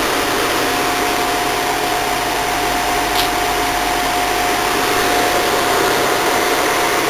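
Speedie mini window air conditioner running on fan only: its blower fan, driven by a 1/15 horsepower Fasco induction motor, pushes a steady rush of air with a steady whine over it.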